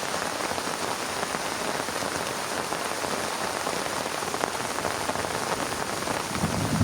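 Heavy rain falling steadily, a dense patter of drops. Near the end a low rumble of thunder begins to build.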